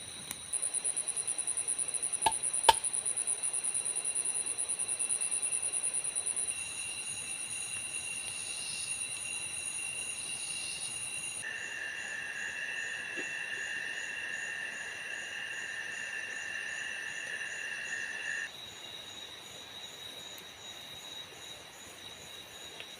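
Chorus of forest insects, each holding a steady, high, fast-pulsing trill. A very high trill runs through the first half, a lower trill takes over after about six seconds, and a buzzing drone joins near the middle and cuts off abruptly near the end. Two sharp clicks come about two seconds in.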